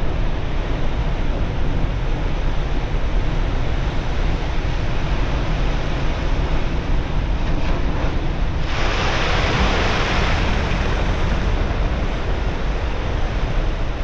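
Big surf breaking and washing over rocks, with a steady low rumble of wind on the microphone. A louder crash of whitewater comes about nine seconds in and lasts a couple of seconds.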